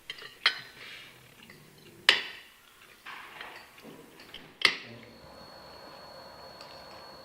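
Spoons and cutlery clinking against plates during a meal: three sharp clinks, the loudest about two seconds in, among smaller taps. From about five seconds in, a faint steady hum with a thin high whine.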